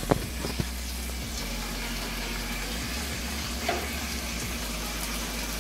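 A fork clinking a few times against a plate in the first moment, over a steady hiss.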